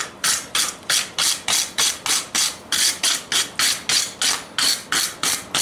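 Steel wire brush scrubbing hot forged steel on an anvil, about four quick strokes a second, each a harsh scratchy rasp: knocking the forge scale off the hot workpiece.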